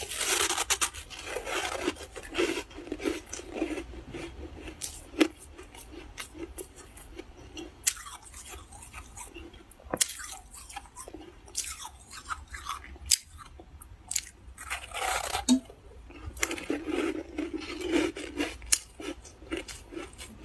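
Crunching and chewing of frost, in spells: a busy run of bites at the start, scattered single crunches through the middle, and another run about 15 to 19 seconds in.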